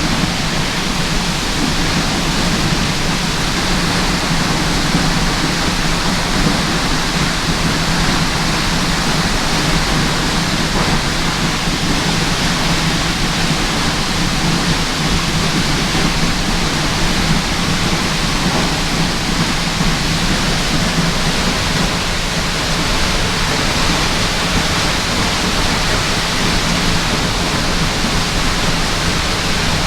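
Waterfall: water pouring in a loud, steady, unbroken rush.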